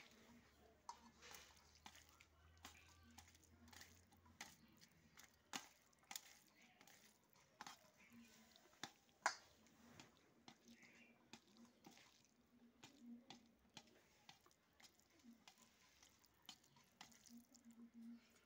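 Faint, irregular clicks and soft squishes of fingers mixing rice and curry against a steel plate while eating by hand, with one sharper click about nine seconds in.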